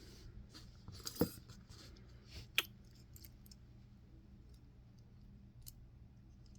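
A few short, sharp small metal clicks and taps from a padlock being taken apart by hand, over faint background hum.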